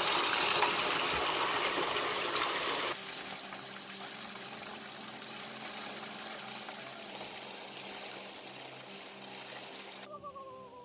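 Cold spring water gushing and splashing loudly, then dropping abruptly about three seconds in to a quieter, steady flow of running water.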